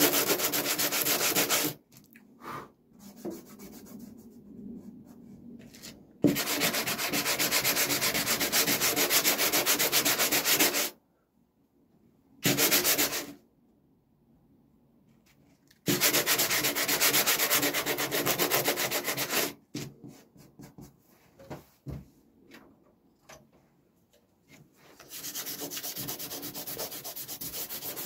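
Sanding in several spells of a few seconds each: a steady, fast scratchy rasping that stops and starts again, with quiet stretches and light knocks between. The last spell, near the end, is softer.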